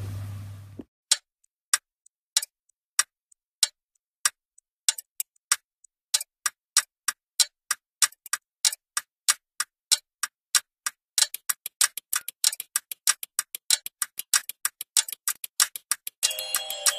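Sharp ticking clicks, slow at first and speeding up steadily to several a second, building into an electronic music track that comes in near the end.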